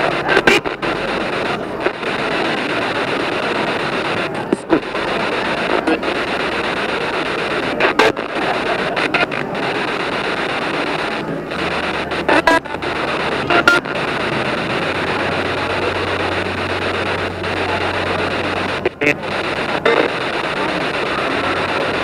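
SB7 spirit box sweeping through radio frequencies: a steady hiss of radio static, broken every few seconds by short clicks and dropouts with brief snatches of broadcast sound.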